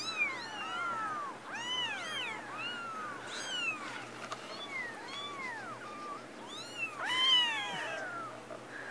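Several young kittens mewing over and over in short, high calls that rise and fall in pitch, often overlapping. The loudest cry comes about seven seconds in.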